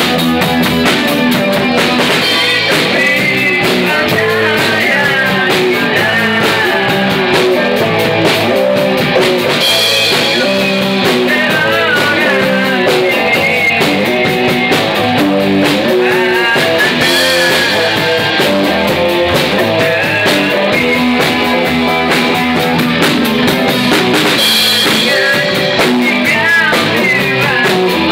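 A band playing a rock song live: drum kit, electric bass, guitar and a man singing into a microphone, loud and steady throughout.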